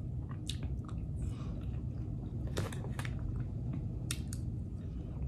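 Close-up chewing of mouthfuls of vegetables and rice, with scattered light clicks and crackles, over a steady low hum.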